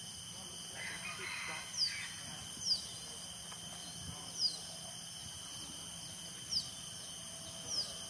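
Crested goshawk calling: five short, high whistled notes, each slurring downward, spaced a second or two apart.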